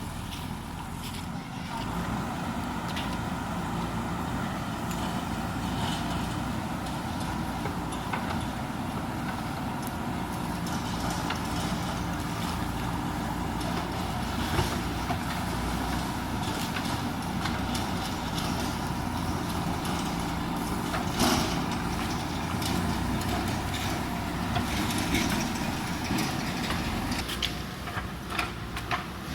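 JCB backhoe loader's diesel engine running under working load. It rises about two seconds in and eases back near the end, with a few sharp knocks in between.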